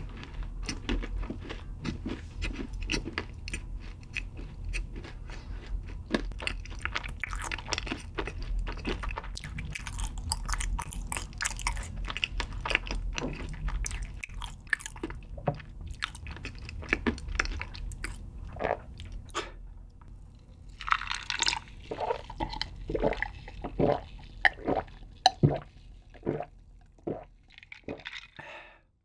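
Close-miked chewing of crunchy food with the mouth closed: a dense run of small crunches. Over the last several seconds come a dozen or so louder, separate sounds, as a glass of iced drink is taken up.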